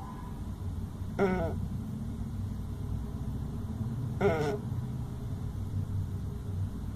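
Opossum snoring: short, squeaky, pitched snores that dip in pitch, one about every three seconds, two in all. A steady low rumble runs underneath.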